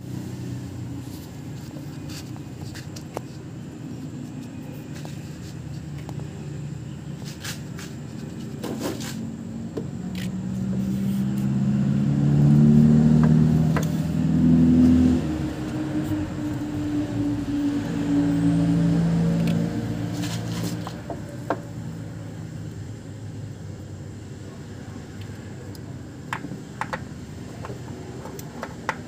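A motor vehicle's engine runs in the background: its pitch rises and it grows loud from about a third of the way in, then it fades out about two-thirds through. A few light clicks and knocks sound along with it.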